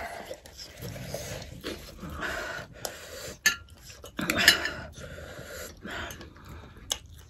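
Sniffling and nose-blowing into a tissue, a runny nose from very spicy food, with a fork and knife clicking and scraping on a ceramic plate now and then.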